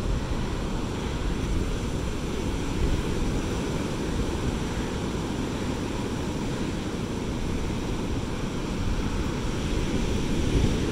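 Ocean surf breaking against a rock outcrop and washing up the sand, a steady rush of churning water.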